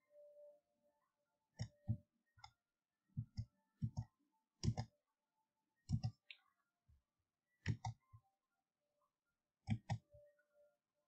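Computer mouse clicking, mostly in quick pairs of sharp clicks, about every second or two.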